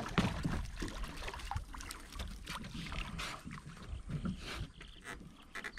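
Water lapping and splashing against a small fishing boat, with scattered light knocks and rattles.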